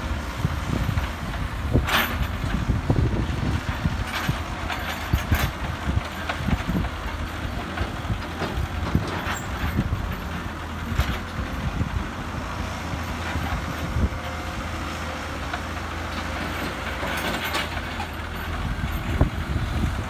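JCB 3CX backhoe loader's diesel engine running steadily under load while its front bucket scrapes and pushes loose gravel, with scattered clatters of stones.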